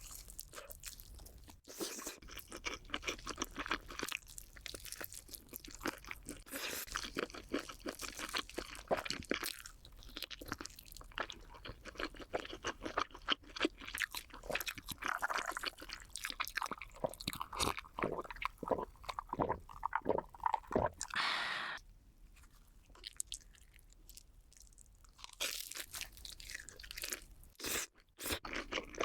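Crunchy chewing of cheese balls: a rapid run of crunches that pauses about three quarters of the way through, then starts again.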